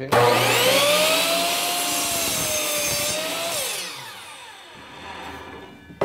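Electric chop saw cutting through a red oak flooring board: the motor starts with a rising whine, runs steady through the cut, then is released and winds down with a falling whine about three and a half seconds in.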